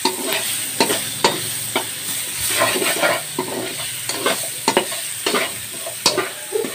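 Sliced green bell peppers sizzling in hot oil in a wok, with a steady hiss, while a spatula stirs them and scrapes and knocks against the pan in irregular strokes, about one every half second.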